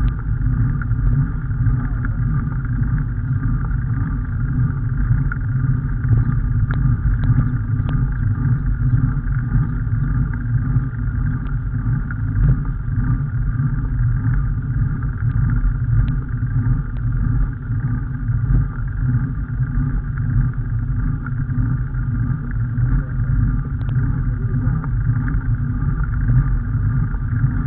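Steady wind rumble on the microphone of a camera carried by a rider cycling along a lane, with a few faint clicks.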